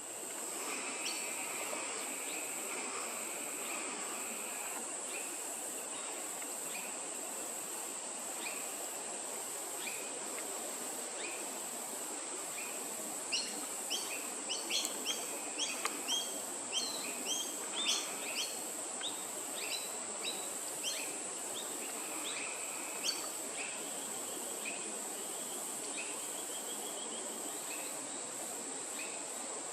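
A steady, high-pitched insect drone, like crickets or cicadas, runs throughout. A quick flurry of short bird chirps comes from about the middle, for some ten seconds.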